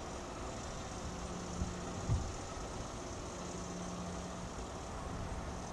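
Diesel freight locomotive's engine running as it approaches at the head of a double-stack container train, heard from a distance: a low steady rumble with a faint hum, and a brief thump about two seconds in.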